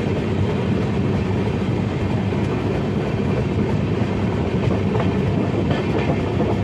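Indian Railways passenger train running at speed, heard from beside a coach: a steady, loud rumble of wheels on rails, with a few faint clicks.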